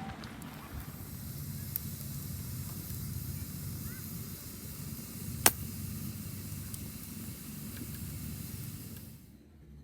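Wood campfire burning with a steady hiss and low rumble, one sharp loud pop about halfway through and a few faint crackles; the sound drops away just before the end.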